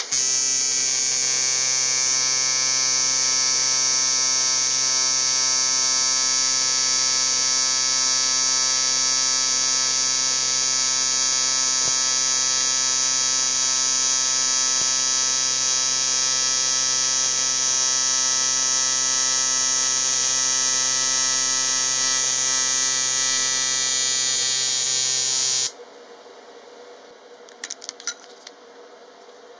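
AC TIG welding arc on 3 mm aluminium: a loud, steady buzz while a bead is laid with filler rod. It cuts off suddenly near the end, followed by a few faint clicks.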